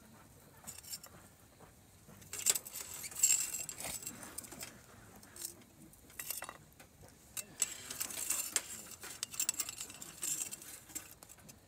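Light clinking, rustling and crackling as a gloved hand works at a wood fire in a folding metal fire grill under a hanging pot. The sounds come in two clusters of short, sharp clicks, about two to four seconds in and again around eight to ten seconds.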